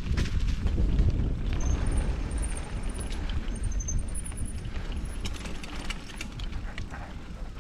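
Mountain bike rolling over a dirt trail: a rough rumble with many small clicks and rattles from the bike.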